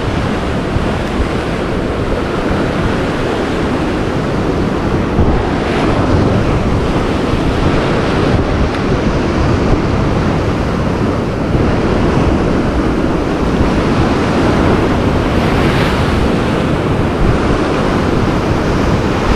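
Rough ocean surf breaking and churning against a rocky shoreline, a continuous rushing wash, with wind buffeting the microphone.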